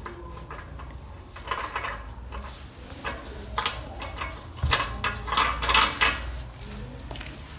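Small metallic clicks and scrapes as gloved hands handle the threaded metal fittings of an autoclave's air-release valve. They come in scattered clusters and are busiest and loudest about five to six seconds in.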